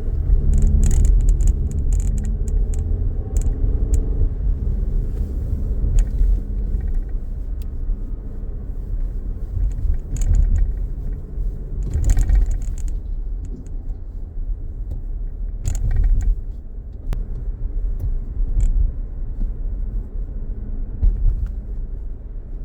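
Toyota RAV4 Adventure running, a steady low rumble with many scattered sharp clicks and rattles, more of them in the first few seconds. This is the strange noise whose cause is not known.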